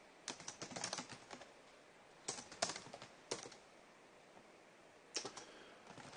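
Typing on a computer keyboard in several short runs of keystrokes separated by pauses.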